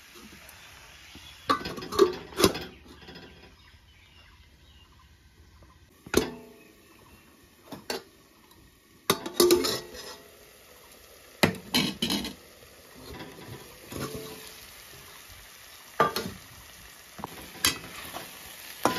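Metal cookware clinking and scraping: a spatula stirring food in a wok. The strikes come as scattered sharp clinks, with quieter stretches between them.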